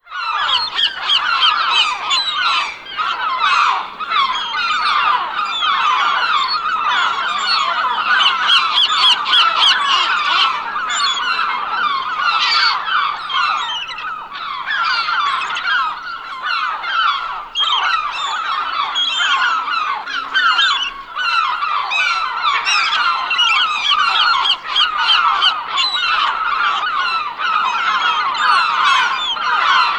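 A flock of gulls calling all together: a dense, continuous chorus of many short, overlapping cries.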